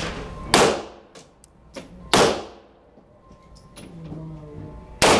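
Three 9mm pistol shots, the second about a second and a half after the first and the third about three seconds later. Each crack rings on off the hard walls of an indoor range, with fainter clicks between them.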